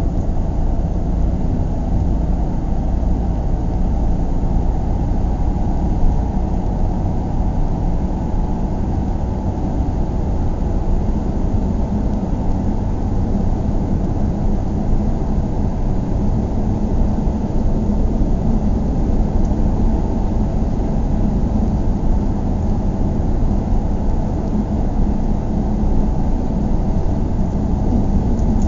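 Steady low rumble of a car driving, engine and road noise heard from inside the cabin, muffled with little high end.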